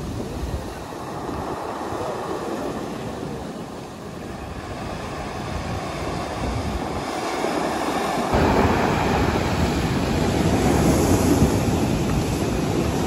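Wind buffeting the microphone over the wash of ocean surf, a steady rushing noise that turns abruptly louder about eight seconds in.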